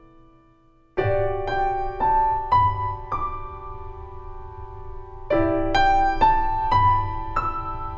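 Solo piano in a slow, tender passage: a held chord dies away, then about a second in a rising run of five notes about half a second apart starts over a low bass note, and the same rising run comes again about five seconds in.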